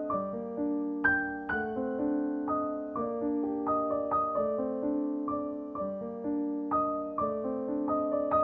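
Soft background piano music: a gentle melody of struck notes that ring and fade, with a phrase that repeats about every three seconds.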